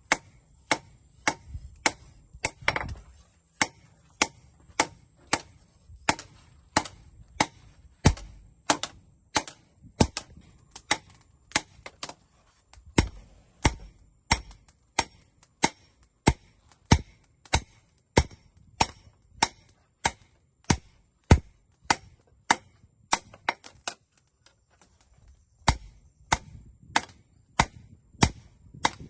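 Hand hammer striking metal on an anvil in a steady rhythm of sharp, ringing blows, close to two a second, pausing briefly near the end. This is a blacksmith hammering out a knife blade.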